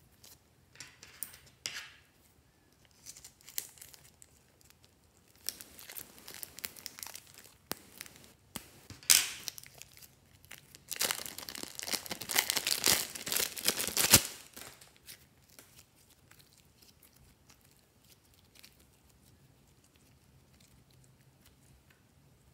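Thin plastic bag of fluffy slime crinkling and rustling in the hands as it is handled and squeezed out, in irregular bursts, with the loudest, densest crinkling a little past halfway.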